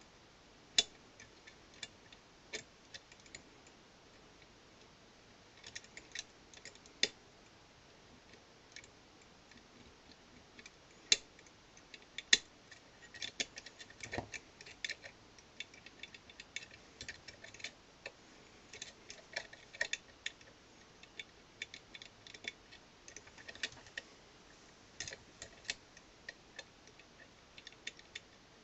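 Irregular small metallic clicks and scrapes of a lever pick working the levers inside a 5-lever mortice lock under tension, coming singly and in quick clusters.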